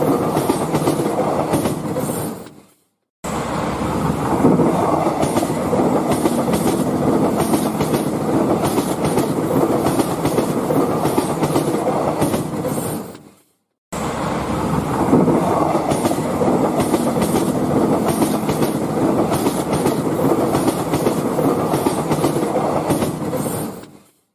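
Railway train passing, its wheels clacking in a steady rhythm over the rail joints. The same recording repeats: it fades out about two seconds in, cuts back in suddenly, runs about ten seconds, fades out, then cuts in once more and fades out near the end.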